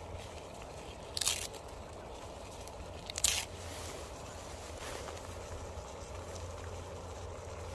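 A sheet of dry, crisp nori seaweed torn by hand: two short, sharp rips about two seconds apart, over a steady low background.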